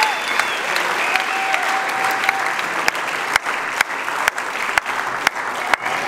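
Audience applauding. In the second half a few sharp claps close by stand out, about two a second.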